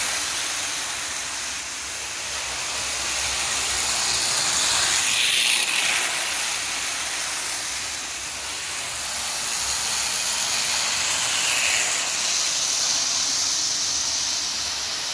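Lionel postwar O scale toy train, a steam-type locomotive's electric motor and the cars' wheels running on three-rail track, making a steady high rushing whir. It swells and fades every few seconds as the train circles the oval.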